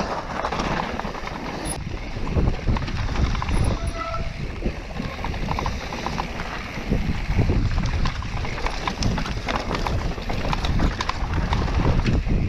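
Mountain bike rolling fast down a rough dirt trail: tyres running over stones and roots, with the frame and chain rattling in constant irregular knocks. Wind rumbles on the microphone underneath.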